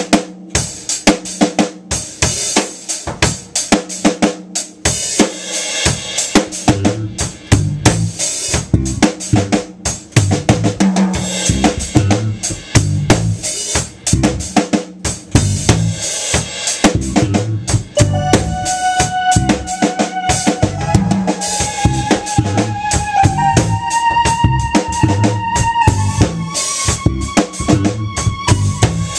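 Live rock band jamming: a drum kit played busily with kick and snare, under bass guitar. A little past halfway, long held keyboard notes come in and step upward in pitch.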